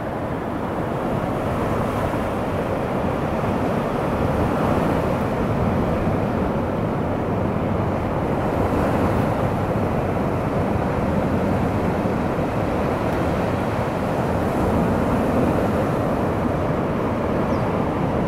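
Sea waves washing on the shore with wind, a steady rushing that swells and eases slowly.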